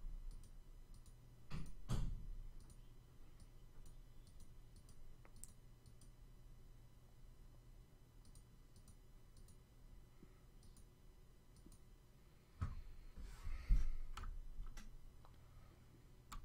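Faint, scattered computer mouse and keyboard clicks, with a few louder knocks and a short rustle about two seconds in and again around thirteen seconds in.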